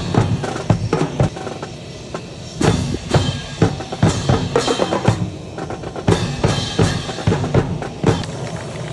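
Military band's snare and bass drums playing a marching cadence, a steady run of sharp drum hits.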